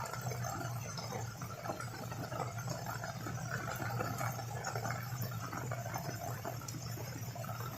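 Heavy rain falling steadily, a dense patter of many small drops, with a low steady hum beneath.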